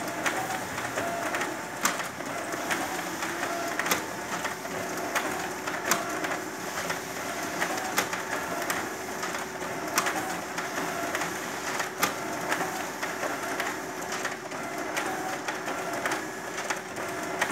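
Multifunction photocopier running an A4 copy job, feeding and ejecting sheets with a steady mechanical whir and a sharp click about every two seconds.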